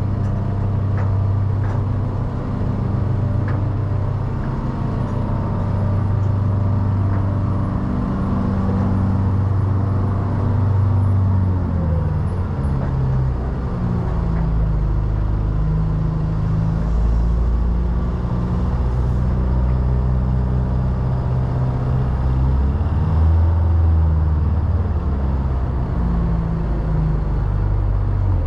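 Heavy vehicle engine running close by: a steady, pulsing low idle at first, then rising and falling in pitch from about halfway through.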